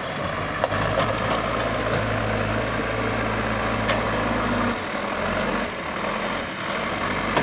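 Caterpillar 424B backhoe loader's diesel engine running under load as the front loader bucket digs into and lifts soil, with a few sharp clanks. Its steady low drone eases off about five seconds in.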